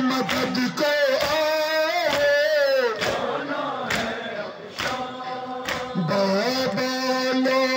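Male voices chanting a nouha, a Shia lament, to a slow, wavering melody. Beats about once a second from chest-beating (matam) run through it.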